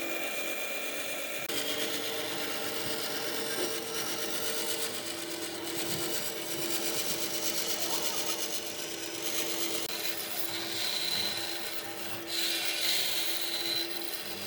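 Electric power tool working wood: a motor's steady hum under a rasping, rubbing noise, changing character about a second and a half in.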